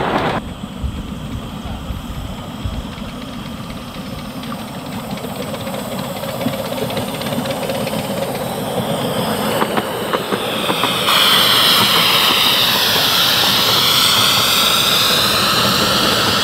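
7¼-inch gauge miniature steam locomotive hauling a loaded riding train, running into the platform and past: wheels on the track growing louder as it approaches, then a steady hiss of steam as the engine draws alongside.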